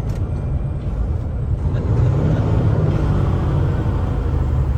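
Kenworth semi truck's diesel engine and road rumble, heard from inside the cab; the engine note rises a little around the middle.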